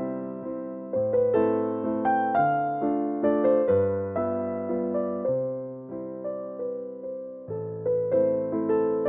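Background music: a keyboard playing gentle chords and a slow melody, each note struck and fading away.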